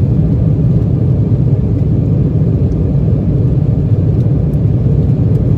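Steady low roar of an airliner's engines and rushing air, heard from inside the passenger cabin during the climb after takeoff.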